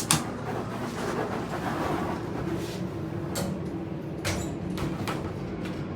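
Hydraulic elevator's doors sliding, with a steady low hum and a few light clicks.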